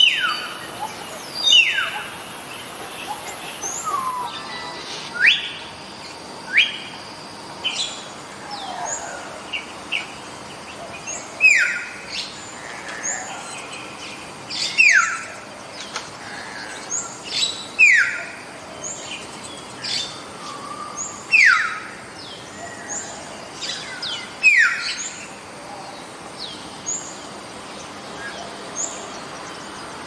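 Common hill myna giving loud whistles that fall steeply in pitch, repeated every few seconds, with other birds chirping faintly behind.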